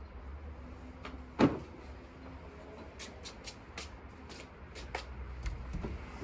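Handling noises while gear is readied: one loud knock about a second and a half in, then a scatter of light clicks and taps, over a low steady hum. No sander is running.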